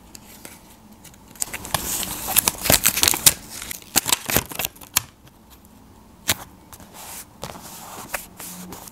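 Paper rustling and crinkling with sharp clicks as a hand-drawn paper sticker is handled, positioned and pressed onto a sketchbook page. The handling is busiest in the first half, with one sharp click later and quieter rubbing near the end.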